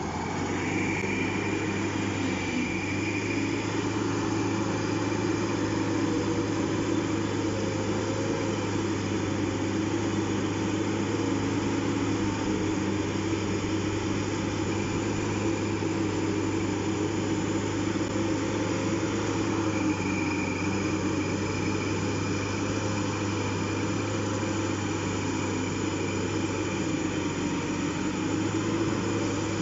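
Diesel engine of a Kirovets K-702MBA-01-BKU wheeled dozer running steadily as the machine pushes sand with its front blade. A faint high whine comes in about a second in and again from about twenty seconds in.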